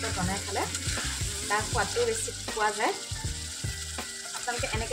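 Chicken in a yogurt gravy sizzling in a wok while a spatula stirs it.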